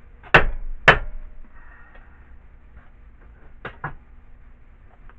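Two loud, sharp knocks half a second apart, then two lighter knocks in quick succession, as the cylinder head of an old air compressor is worked free and lifted off its head gasket.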